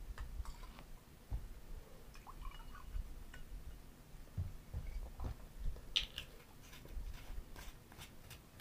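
Faint clinks, taps and clicks of glass bottles and a shot glass being handled and set down on a rubber bar mat, with a sharp click about six seconds in and a bottle's screw cap being twisted near the end.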